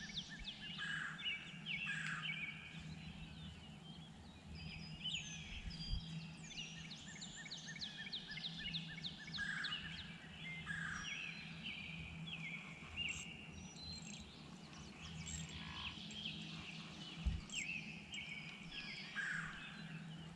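Several songbirds singing and chirping, quick overlapping calls throughout, over a faint low steady hum. A soft low thump comes about six seconds in and a louder one near the end.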